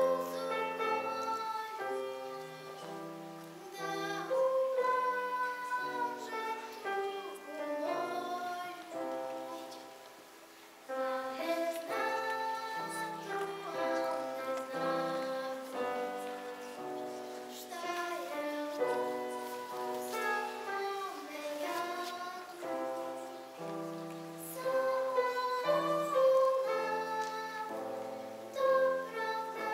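A young girl singing a song solo over instrumental accompaniment, pausing briefly between phrases about ten seconds in.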